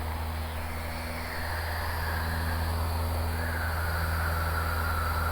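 Van's RV-7 piston engine and propeller droning steadily in the cockpit, with a higher whine that slides down in pitch twice, about a second in and again near the middle.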